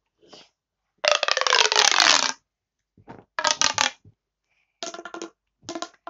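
Plastic pop tube fidget toy being stretched and squashed, making bursts of ribbed zipping clicks with a whistling tone in them. The first and longest burst comes about a second in and lasts over a second, falling in pitch, and three shorter bursts follow.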